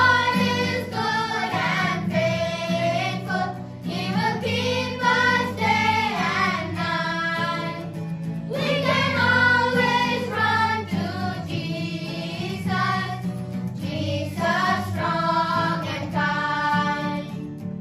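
Children's choir singing a song together in unison, with electronic keyboard accompaniment holding steady chords underneath.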